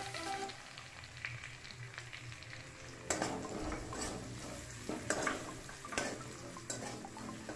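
Chopped red onions sizzling in hot oil and ghee in a large metal wok. From about three seconds in, a metal spatula scrapes and stirs across the pan roughly once a second.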